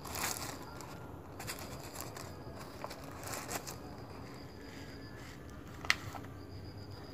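Plastic bag rustling and crinkling in short bursts as pieces of sugarcane jaggery are taken out of it, with one sharp knock near six seconds in.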